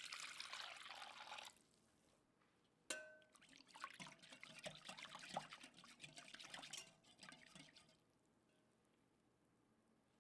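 Liquid poured into a dish in two spells: a short pour at the start, then a longer, splashy one after a sharp clink about three seconds in. Quiet after about eight seconds.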